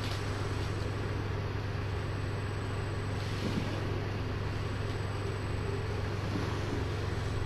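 Steady low hum over an even hiss: constant background noise with no distinct events.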